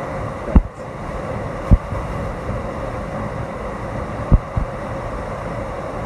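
Steady roar of Seljalandsfoss's falling water heard from right behind the falls. Four short, low thumps on the microphone break in: one about half a second in, one near two seconds, and two close together at about four and a half seconds.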